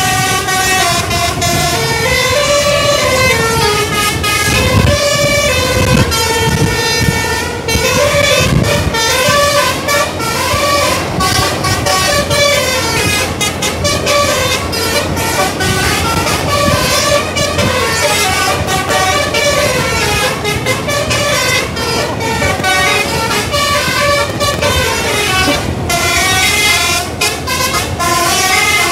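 Bus telolet horn, a multi-tone Basuri air horn, playing a long string of melodies: several notes at once that step and slide up and down without a break.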